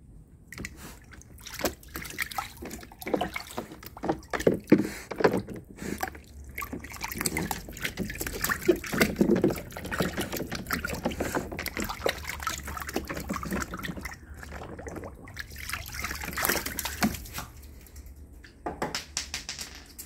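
A poodle pawing in a shallow plastic paddling pool, digging at the stones on its bottom: water splashing and sloshing in an irregular run of splashes.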